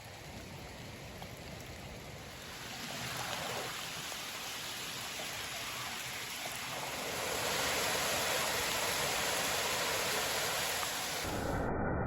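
Rushing water of a rain-swollen stream with heavy rain, a steady rushing noise that grows louder twice as it goes on. Near the end the sound abruptly turns duller, losing its hiss.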